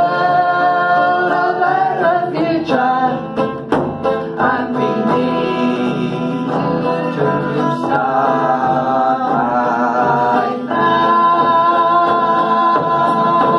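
A woman and a man singing long held notes together, with an acoustic guitar strummed and a hand-held frame drum beaten with a stick.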